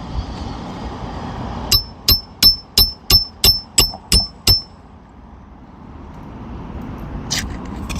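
Hammer striking a roof snake tool to drive a roofing nail in under a lifted shingle: nine quick ringing strikes, about three a second, that stop about halfway through.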